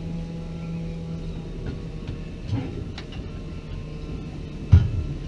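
A steady low engine hum with a few knocks over it, the loudest a sharp clunk near the end.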